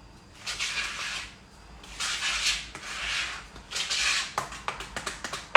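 A utensil scraping and stirring thick brownie batter in a bowl: three long scraping strokes, then a quick run of light clicks and knocks near the end.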